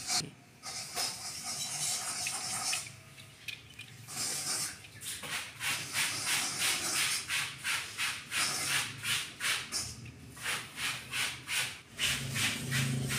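Plastic toy robots being handled, then shuffled across a tile floor in short scraping steps, about two to three a second.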